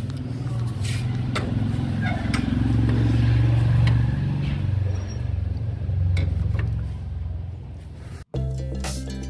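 Scooter engine running steadily, rising a little about three to four seconds in, with a few short knocks from the steel gate being handled. Near the end the sound cuts off abruptly and background music starts.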